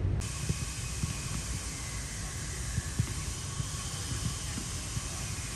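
Outdoor ambience on the camera microphone: a steady hiss over a low rumble, with a few faint thumps.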